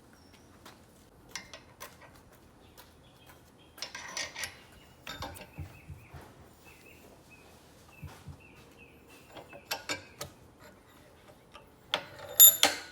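Hand-work noises on small metal parts of a hydraulic brake cylinder: scattered clicks and light knocks, a short scraping rustle about four seconds in, and a quick run of louder clicks and knocks near the end.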